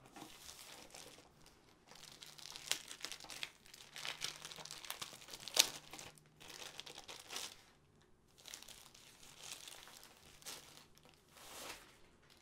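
Clear plastic wrapping crinkling as it is pulled and stripped off a rolled canvas, in irregular handfuls, with one sharp crackle near the middle and a short pause about two-thirds through.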